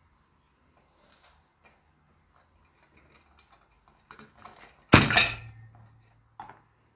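Small metallic clicks and taps of a metal mini desk fan being worked on by hand, then one loud metal clatter about five seconds in.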